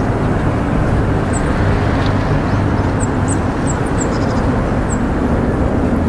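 Steady low rumble of distant vehicle noise, with faint, short, high bird chirps several times in the middle.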